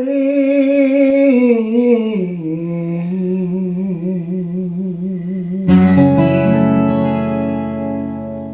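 A man's voice holds the last sung word of the line with a wide vibrato, stepping down in pitch about two seconds in. A little before six seconds, a closing chord is strummed on a twelve-string acoustic guitar and rings out, slowly fading.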